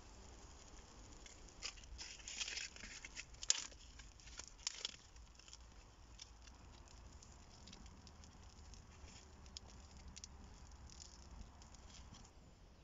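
A small twig fire catching: dry kindling handled and fed onto burning tinder, with a cluster of sharp crackles and snaps between about two and five seconds in, then only sparse faint crackling.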